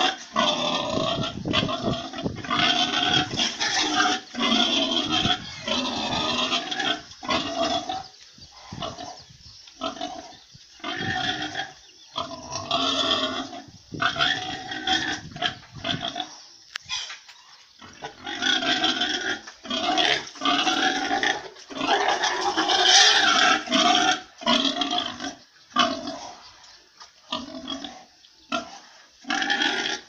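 Domestic pigs vocalising, loud pitched calls about a second long, one after another with short pauses between.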